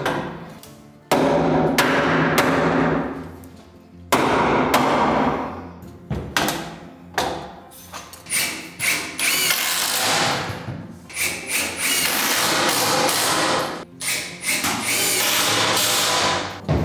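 Hammer blows on timber framing, followed by repeated short runs of a handheld cordless power driver driving screws into the wooden frame, with sharp strikes between the runs.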